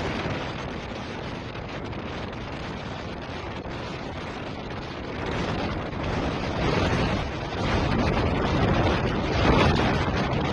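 Strong wind blowing hard across the microphone: a dense, even rush of noise that grows louder about six seconds in.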